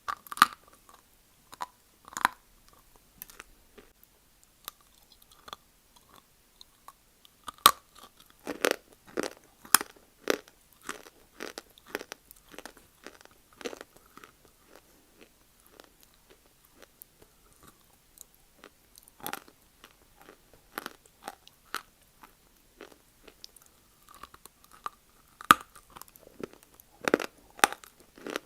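A person biting and chewing crunchy chunks of dry Multani mitti (fuller's earth clay) close to the microphone: irregular sharp crunches, coming thickest from about eight seconds in and again near the end.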